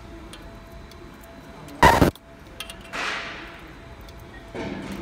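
Fiber laser marking steel hemostats on a moving conveyor: a short, loud buzzing burst about two seconds in as an instrument is marked, then a softer hiss about three seconds in that fades over a second. A faint steady machine hum runs underneath.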